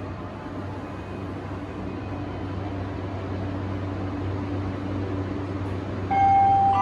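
Steady mechanical hum of an E235 series train standing at the platform with its doors open, its equipment running. Near the end a louder steady tone sounds, the start of a chime.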